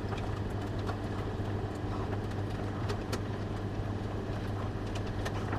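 Faint clicks of power cables being routed and plugged in inside a desktop PC case, over a steady low hum.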